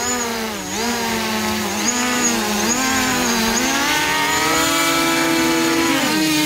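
Small folding quadcopter drone's propellers whining close up as it is caught by hand. The pitch wavers up and down as the motors adjust, holds steadier and a little higher, then drops slightly near the end.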